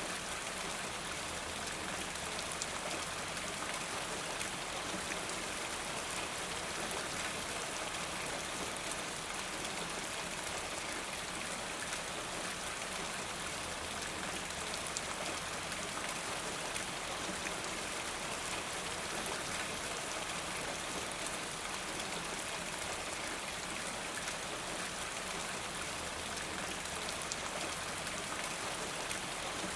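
Steady rain falling, an even wash of noise with many small drop ticks scattered through it, unchanging throughout.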